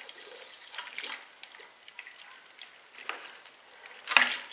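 Water trickling and dripping from a newly plumbed tap outlet as the long supply line slowly fills, with faint irregular drips and one louder splash near the end.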